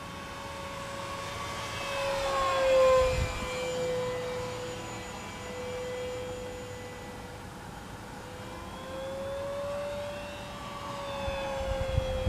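Electric motor and propeller of an FMS Cessna 182 RC plane in flight: a steady whine whose pitch slides down about three seconds in, then rises and falls again around ten seconds as the plane passes.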